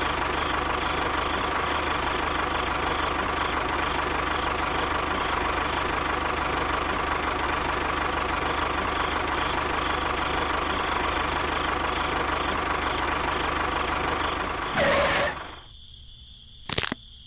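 A motor running steadily at an even pitch, stopping about fifteen seconds in, followed by a brief click near the end.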